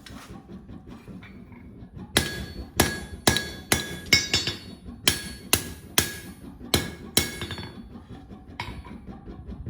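Hand hammer striking hot steel on an anvil in forging: about a dozen ringing blows at roughly two a second, starting about two seconds in and stopping a couple of seconds before the end.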